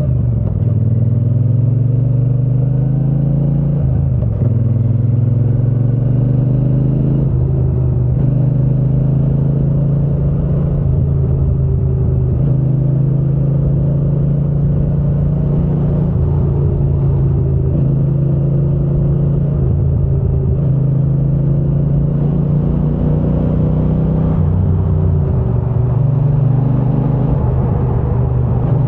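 Triumph Bonneville T120 parallel-twin motorcycle engine and exhaust running under way, its pitch stepping up and down several times as it is ridden.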